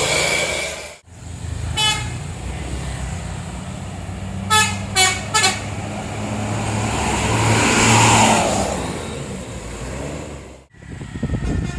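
Tour bus 'telolet basuri' musical air horn: a held chord that cuts off about a second in, a short blast a second later, then three quick toots about halfway through. Under it a bus engine runs and swells as the bus passes, then cuts off near the end.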